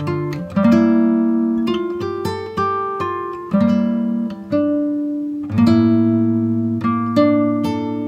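Background music: plucked acoustic guitar notes and chords, each struck note ringing and fading, about one to two strikes a second.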